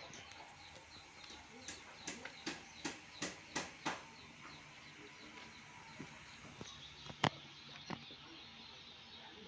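A run of about seven sharp knocks, a little over two a second, then a few single knocks, one of them louder, over faint bird chirping.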